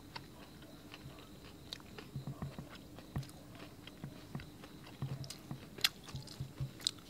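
A person chewing a mouthful of crispy deep-fried king crab leg: faint, irregular crunches and soft mouth sounds.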